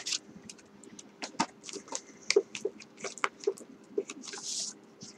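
Paper and cardboard being handled: irregular rustles and light clicks as printed inserts are taken out of a software box, with a longer rustle about four and a half seconds in. A faint steady hum underneath.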